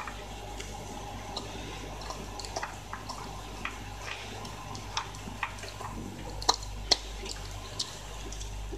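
A Shiba Inu eating dry kibble from a floor bowl: irregular wet chewing crunches and clicks of mouth and kibble against the bowl, with two louder clicks a little past the middle.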